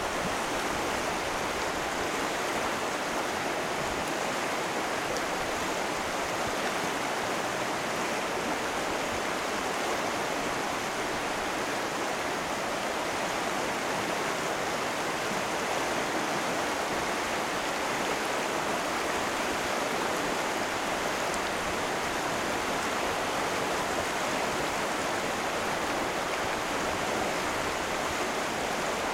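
River water rushing steadily over rocky riffles, a constant, even rush of flowing water.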